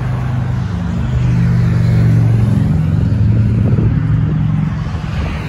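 A motor vehicle's engine running on the adjacent road as it passes, its low drone swelling about a second in and easing off near the end, over traffic and wind noise.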